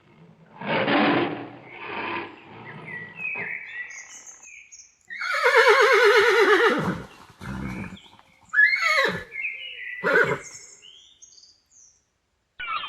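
A horse whinnying: a long, loud, quavering neigh falling in pitch about five seconds in, then two shorter calls around nine and ten seconds in. A few noisy breathy sounds come in the first three seconds.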